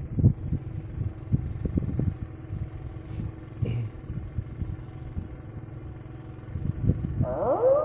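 Wind buffeting the microphone in irregular low rumbling gusts. Near the end a tone sweeps upward and settles into a held note: added music or a sound effect starting.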